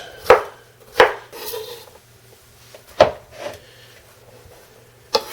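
Kitchen knife chopping a dill pickle on a cutting board: about five sharp, unevenly spaced strikes, with a brief scrape of the blade after the second.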